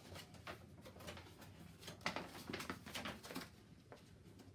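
Faint handling noise: soft clicks and rustles from a small baby-monitor camera being operated by hand and a paper instruction sheet being handled, thickest about two seconds in.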